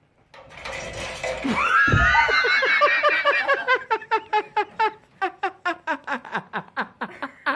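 A person laughing hard: a high rising squeal that breaks into a long run of quick 'ha' bursts, about four a second, dropping in pitch as it goes on.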